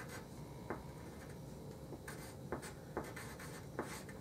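Handwriting: a few faint, short pen strokes and taps on a writing surface as numbers are written out.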